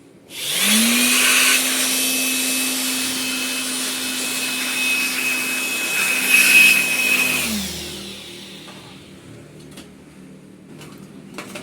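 A small electric motor with a strong rush of air spins up quickly, runs at a steady pitch for about seven seconds, then winds down.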